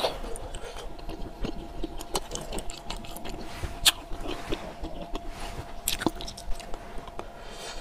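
Close-miked chewing of a soft wax bottle candy filled with fruit jam: quiet, wet, irregular clicks and squishes, with a few sharper clicks spread through.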